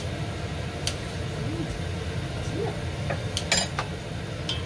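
Kitchen utensils clicking and clattering against a stainless-steel stockpot, a few sharp knocks with the loudest a short rattle about three and a half seconds in, over a steady low hum.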